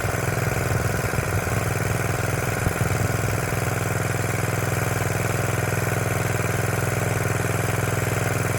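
Small pull-start motor pump's engine running steadily and evenly, pumping water, now that the loose screw holding its rotor has been tightened.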